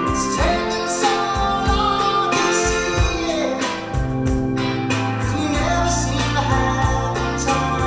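Music with singing, a steady beat and sustained bass notes.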